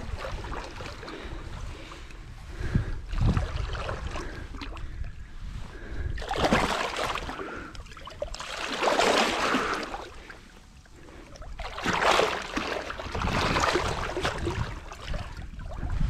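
Water splashing and sloshing as a hooked wels catfish thrashes at the surface, in several irregular bursts. The loudest come about six, nine and twelve seconds in.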